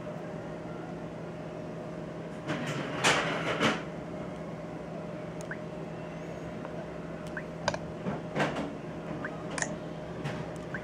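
Fingers handling and tapping the touchscreen of a handheld car GPS navigator: a short rustle about three seconds in, then a few light, sharp taps in the second half, over a steady low hum.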